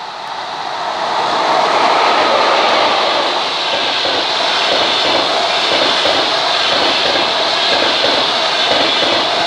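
EP2K electric locomotive hauling a passenger train passing at speed: the noise swells quickly to full loudness in the first two seconds as the locomotive goes by. Then the coaches roll past with a steady rushing of wheels on rail and a rapid, uneven clatter of wheelsets.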